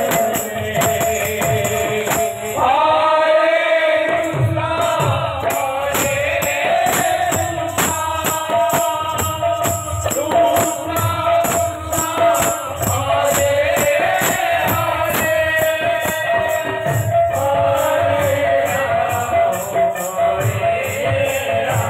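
Kirtan devotional singing, sung voices carrying the melody over a two-headed barrel drum (mridanga) and jingling metal percussion that keep a steady, even beat.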